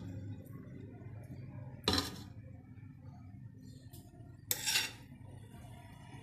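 A metal serving spoon knocks and scrapes against a metal cooking pot and plate as rice is dished out. There is a short clink about two seconds in and a longer scraping clatter about four and a half seconds in.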